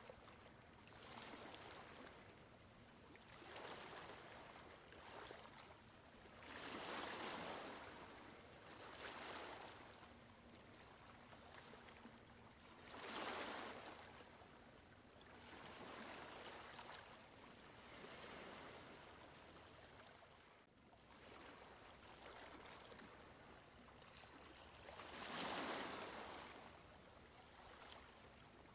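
Faint rushing water sound, swelling and fading every couple of seconds, the strongest swells about a quarter, halfway and near the end.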